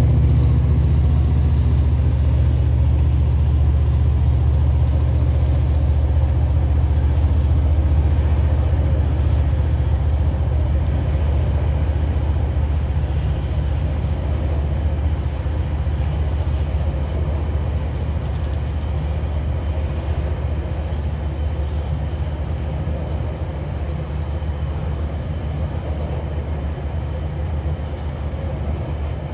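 Train of coal hopper wagons rolling past: a steady low rumble of wheels on rail that slowly fades.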